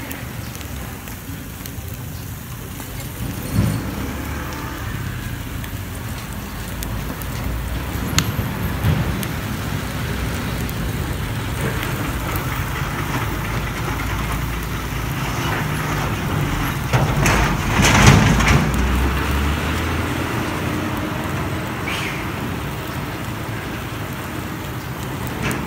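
Meat sizzling on a charcoal grill, a steady hiss over a low rumble. A few light clicks are heard, and a louder noisy swell comes about two-thirds of the way through.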